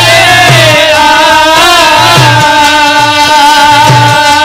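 Rajasthani devotional folk song: a man sings with harmonium accompaniment over a steady low drum beat, about three strokes every two seconds. His line wavers in ornamented turns, then settles on one long held note about two seconds in.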